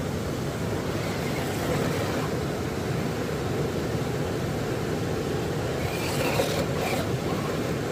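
Steady rushing of river rapids.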